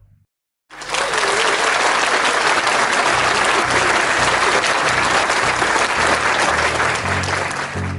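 Crowd applause, starting suddenly about a second in, with background music and a steady low beat underneath.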